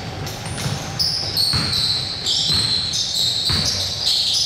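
A basketball bouncing repeatedly on the court floor as it is dribbled, with high squeaks of sneakers on the court.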